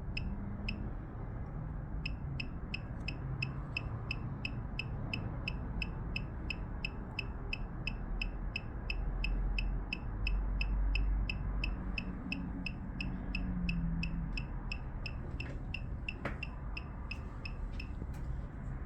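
AK90+ key programmer beeping steadily, about three short high beeps a second, while it writes a BMW EWS3 transponder key in its coil; the beeping stops near the end as writing finishes.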